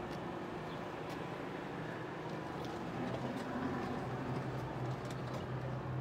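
City street ambience: a steady wash of traffic with a low engine hum that grows louder about halfway through.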